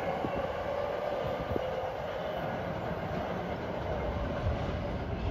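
BART Fleet of the Future train moving along the platform: a steady rail rumble with a faint whine over it.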